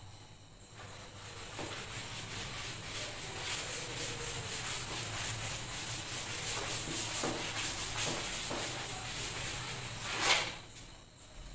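Cloth rubbing across a chalkboard, wiping off the chalk in a steady run of scrubbing strokes. The wiping starts about a second in, has a louder swipe near the end, then stops.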